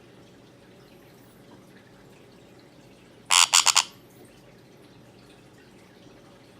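Sun conure giving a quick burst of about four loud, shrill squawks a little past halfway through, over faint high chirps.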